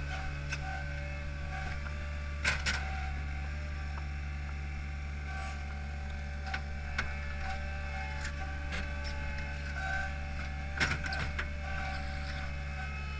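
Hydromak paving machine's engine running steadily, heard from the driver's seat, with a few higher whining tones over the drone. Two short metal clanks stand out, a couple of seconds in and again about three-quarters of the way through.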